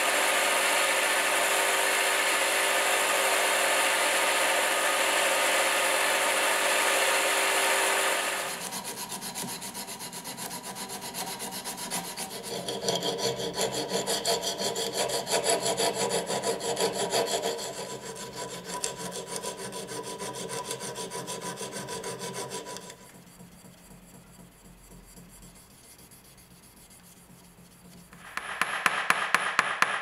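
Belt grinder running steadily with a steel can-opener blade held against the belt, stopping about eight seconds in. Then a thin hand file scrapes back and forth on the small steel blade for about fourteen seconds, followed by a quieter pause. Near the end, quick even hammer taps on a small steel anvil begin, about three a second.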